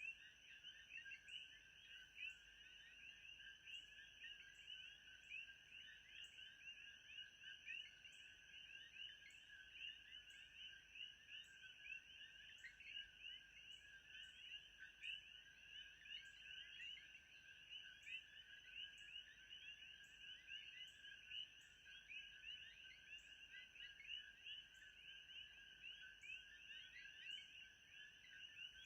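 Faint night-chorus ambience: many small chirps overlap into a steady high shimmer, over a faint steady high tone with soft ticks about once a second.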